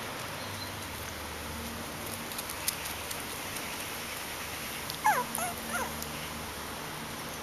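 Bichon Frisé puppies yipping: a quick run of a few short, high squeaky yips about five seconds in, while the puppies play-wrestle.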